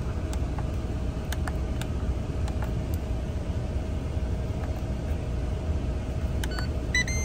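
Air fryer control-panel buttons pressed with a few light clicks, then a short electronic beep near the end as the setting is entered. Underneath, a steady low rumble, the truck's engine idling, with a faint steady hum.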